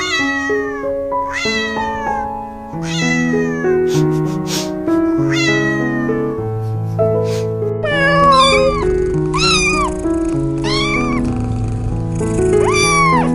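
A cat meowing over and over, about ten short meows, each rising then falling in pitch, over background music with a simple stepping melody.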